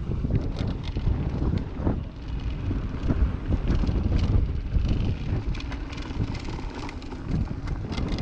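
Wind rushing over an action camera's microphone as a mountain bike rolls fast down a dirt trail, with tyre noise and frequent short rattles and clicks from the bike jolting over bumps.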